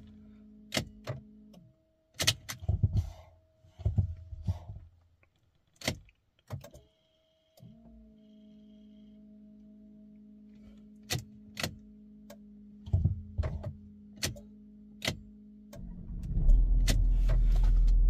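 A 2011 VW Touareg with the ignition on: a steady electrical hum that cuts out and comes back, a series of clicks from the key and controls, and a short two-part beep. About 16 seconds in the diesel engine starts and runs, despite the car's intermittent no-start fault.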